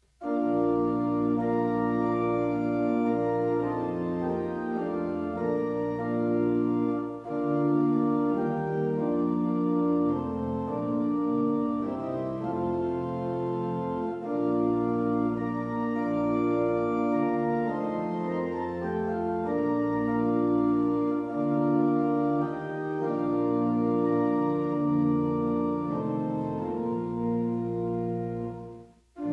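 Organ playing slow, sustained chords that change every second or so. It breaks off briefly near the end.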